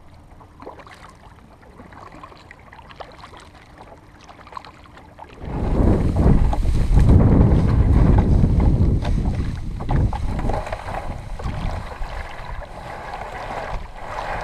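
A kayak being paddled on a lake, quiet water sounds at first, then loud wind buffeting the microphone from about five seconds in.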